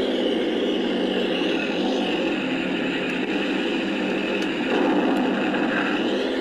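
Simulated tank engine sound from an RC tank's sound unit, played through the model's small speaker, running steadily while the tank drives. The engine note shifts up slightly near the end, as with a change of throttle.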